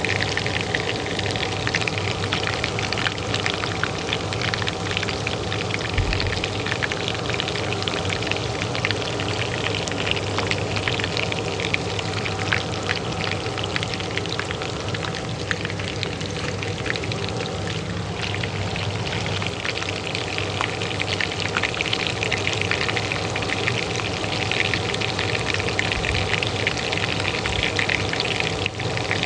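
Oil frying in a pan with a dense, steady crackle and sizzle, over the even hum of a kitchen range hood fan.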